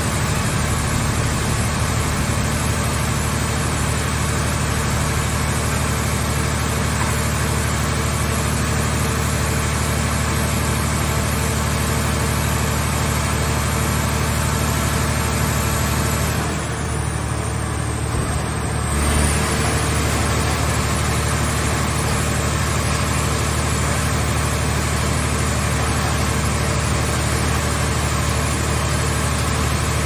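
Car shell baler's hydraulic power unit running steadily with a deep, even hum. Past the middle, the upper hiss drops away for about two seconds and then returns with a brief low thump.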